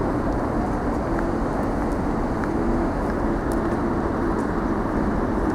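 Class 37 diesel locomotive's engine idling steadily, a low continuous rumble with a steady hum.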